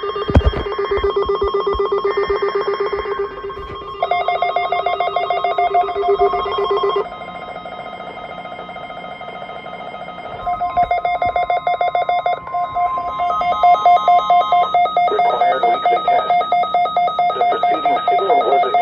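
Rapidly pulsing electronic alarm tones in several steady pitches. The pitch changes a few seconds in, the tones drop quieter for a few seconds around the middle, then they come back louder toward the end.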